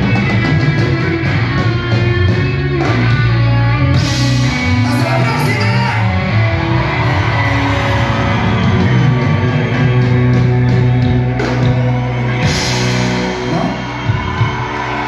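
Live rock band playing, with electric guitar, bass and drums under a sung vocal, loud and full through the stage PA.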